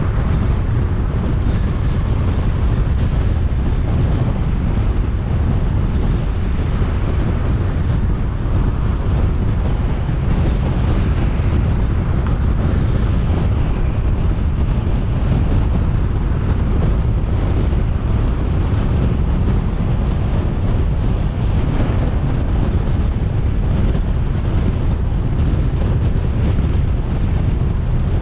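Car driving along, with a steady low rumble of road and wind noise.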